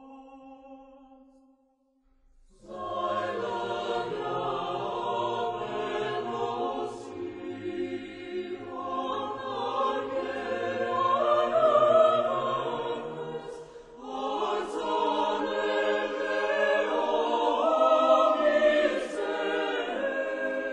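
Choral music: a choir singing in long, sustained chords. A phrase fades out, and after a short pause the choir comes in again about two and a half seconds in. There is a brief dip about two-thirds of the way through.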